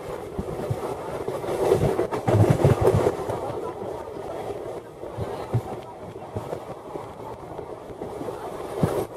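Running noise of a moving express passenger train, heard through an open coach window: wheels clacking and thumping irregularly over rail joints under a steady rush, loudest about two to three seconds in.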